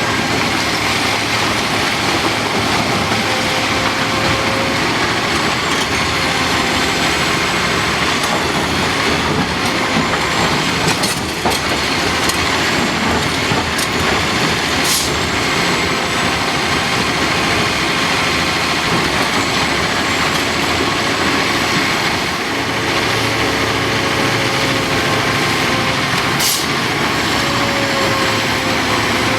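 Heavy diesel earthmoving machinery working steadily: a Caterpillar 5130B mining excavator, with a wavering whine and a few sharp knocks.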